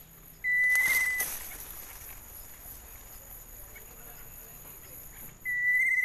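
Two short, high, steady whistled notes about five seconds apart, each starting and stopping abruptly, the first over a brief burst of hiss.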